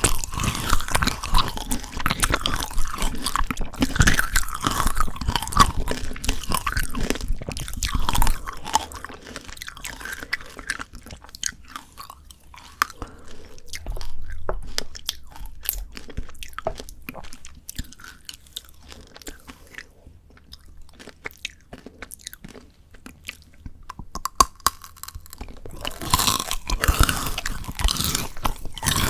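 Close-miked eating of frozen Shine Muscat grape tanghulu: biting and crunching through the hard candy shell, then chewing. The crunching is dense for the first eight seconds or so, thins to quieter, scattered chewing through the middle, and starts up again with fresh bites near the end.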